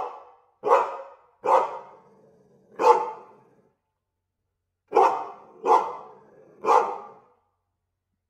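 A dog barking: four barks over about three seconds, a pause of about two seconds, then three more barks, each fading out with a short echo.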